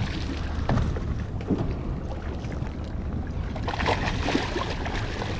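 Steady low rumble of a small fishing boat on the water, with a few light knocks about four seconds in.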